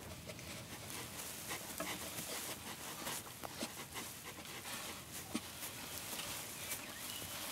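European badgers moving about in their burrow: soft scratching and rustling, with a few brief high squeaks.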